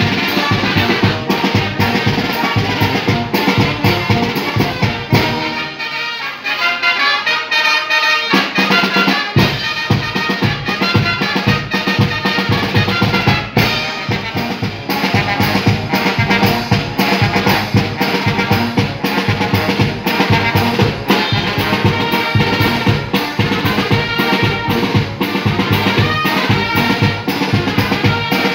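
Loud dance music with brass and a drum kit keeping a steady beat. About six seconds in the bass and drums drop out, and they come back in about three seconds later.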